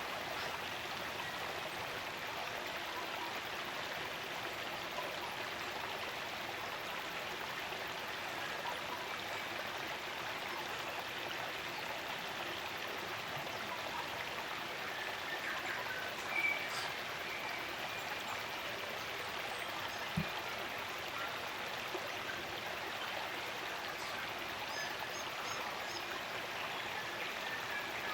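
Spring-fed stream running steadily, an even rush of water. A few faint bird chirps come through about halfway and again near the end.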